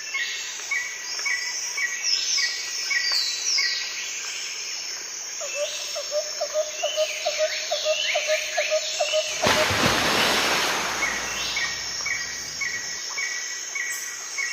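Several birds singing and calling together, with fast runs of repeated chirps and short falling whistles. A little after the middle, a rushing noise rises over them for about three seconds.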